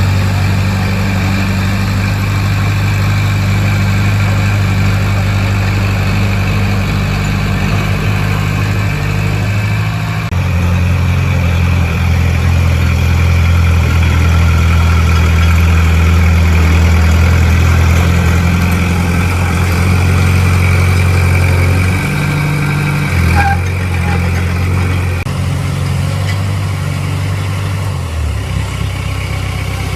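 A heavy diesel engine of construction machinery runs steadily, its low engine note shifting several times as the load changes: up about a third of the way in, and down again near the end. There is a brief knock about three quarters of the way through.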